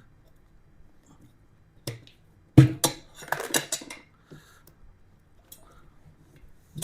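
Metal tire irons knocking and clattering against a motorcycle wheel rim as the tire bead is levered off: a single click, then a loud sharp knock about two and a half seconds in followed by a quick rattle of clicks lasting about a second, and a few light ticks afterwards.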